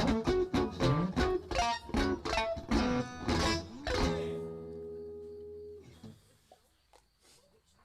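Guitar playing a song intro, chords struck in a quick steady rhythm, then a last chord that rings out from about four seconds in and dies away by about six seconds.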